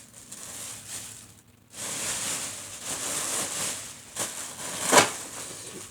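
Plastic bag being crinkled and rustled in two stretches of crackling, with a couple of sharper crackles near the end.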